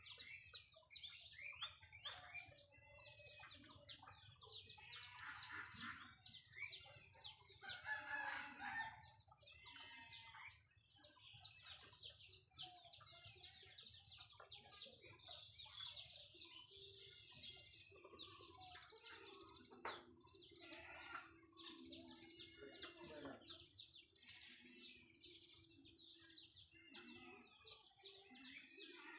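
Faint outdoor bird calls: many quick high chirps repeating throughout, with lower, louder calls about five to nine seconds in.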